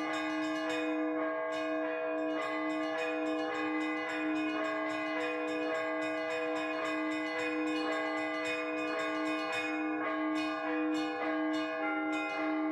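Russian Orthodox church bells ringing a festive peal (trezvon): the small bells chime quickly over a steady repeated stroke on one mid-pitched bell, and the pattern of bells changes near the end.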